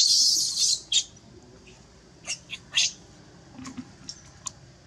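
Baby macaque crying in distress: a loud, harsh, high shriek in the first second, then a string of short, high squeaks.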